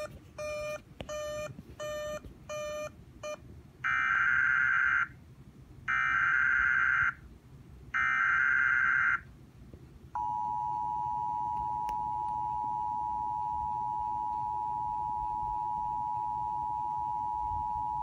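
Emergency Alert System broadcast tones: four short beeps, then three loud one-second bursts of SAME header data tones, then the two-tone attention signal held steady for about eight seconds. It marks the start of an emergency alert, here a severe thunderstorm warning.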